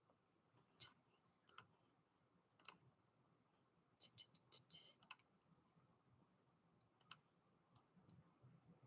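Faint, scattered clicking of a computer keyboard and mouse: a few single clicks, a quick run of about seven around four seconds in, and a pair later on.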